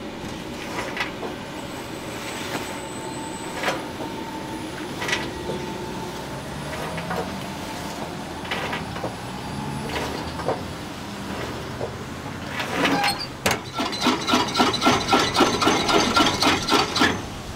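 Metal egg-bread molds clinking and knocking as they are handled and set onto the shelves of a round baking oven. Near the end comes a loud, fast, even rattle of about five beats a second that lasts about three seconds.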